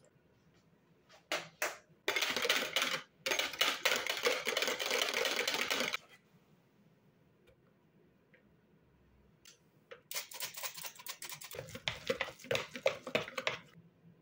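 Two bursts of rapid, dense clicking and rattling, the first lasting about four seconds and the second starting about ten seconds in.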